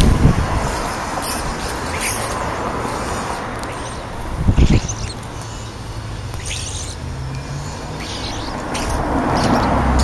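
European starlings at a ground feeding pile, with scattered short high chirps and clicks over steady outdoor noise. Two low thumps, one at the start and one about four and a half seconds in.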